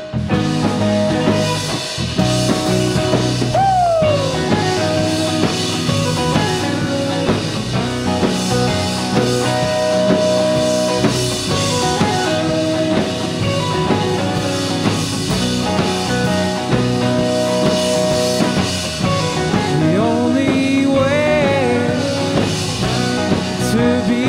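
Rock band playing an instrumental passage with a drum kit, one note sliding down in pitch about four seconds in.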